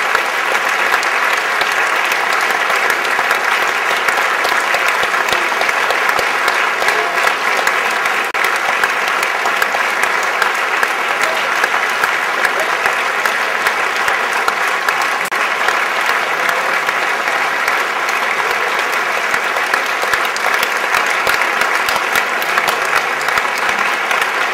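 Large concert audience applauding steadily, a dense, even clapping that keeps up without a break.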